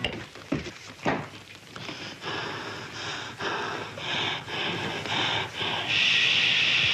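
A person panting hard in uneven, noisy breaths, with a longer, louder breath about six seconds in; two sharp thumps come in the first second or so.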